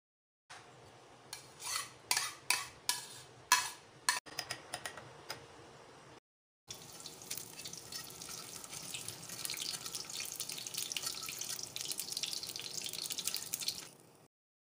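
A metal spoon tossing salad in a glass bowl: about eight short scraping clinks. After a short break, shami kababs shallow-frying in oil on a flat pan, a steady crackling sizzle that grows a little louder.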